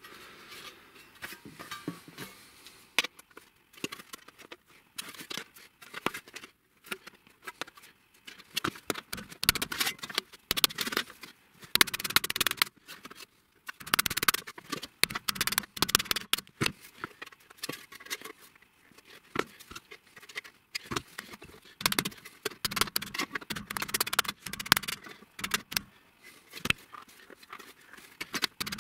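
Thin galvanized sheet steel being bent and folded into a small tray: metallic rattling and scraping as the sheet is handled, with irregular knocks of a wooden mallet on the metal, growing busier after the first several seconds.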